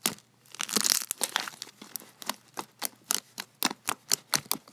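Slime being poked and squeezed, its trapped air bubbles popping in a run of sharp clicks, about three or four a second, with a short crackling rustle about a second in.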